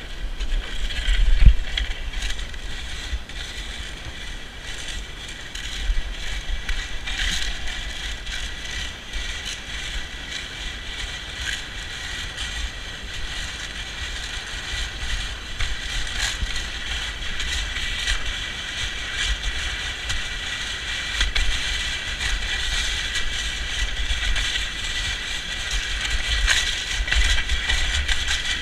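Steel runners of a Flexible Flyer sled scraping and hissing steadily over sleet-packed ice, with small crackles and a low wind rumble on the microphone. There is a sharp knock about a second and a half in.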